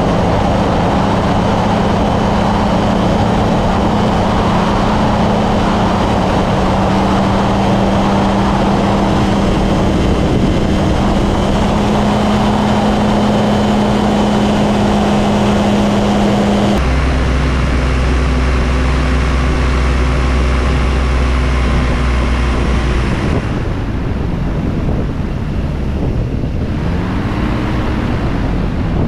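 Kolb Firefly ultralight's engine and propeller droning at steady power in flight, with a rush of wind noise. The sound shifts abruptly twice, about halfway through and again about two-thirds of the way in.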